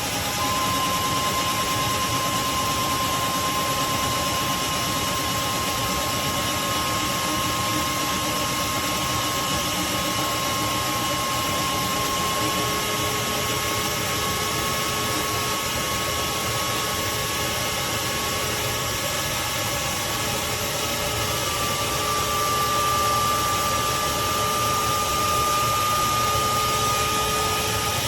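Craftsman 16-gallon wet/dry shop vacuum running steadily: a motor whine over a constant rush of air, the whine stepping slightly higher in pitch about three-quarters of the way through.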